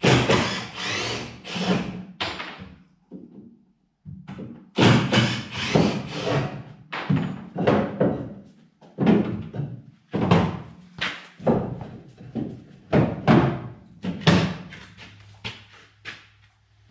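Wooden boards of a truck-bed drawer frame knocking and thudding against each other and the pickup bed as the pieces are pulled loose and lifted out. About a dozen separate knocks come at uneven intervals.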